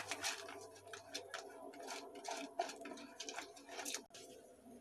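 Water at a boil in an aluminium pot, bubbling with faint, irregular small pops and ticks.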